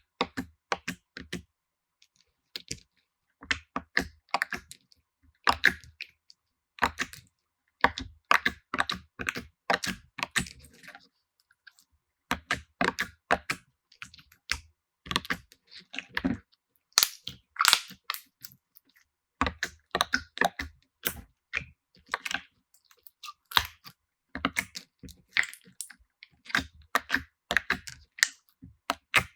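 Slime being squeezed, pressed and poked, giving quick sharp clicks, pops and crackles in irregular clusters, with brief pauses near the start and about eleven seconds in.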